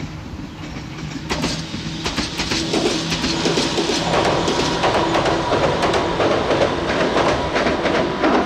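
Electric train approaching on the track, growing steadily louder, its wheels clacking over the rail joints with a steady tone running underneath.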